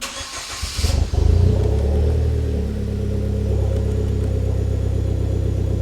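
Hyundai Genesis Coupe's 2.0-litre turbocharged four-cylinder engine cranking for about a second, catching with a brief rev, then settling to a steady idle. It runs on its newly fitted fuel pump, which is working.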